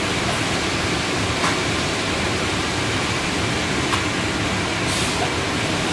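Steady mechanical background noise, even and unbroken, with a few faint light clicks.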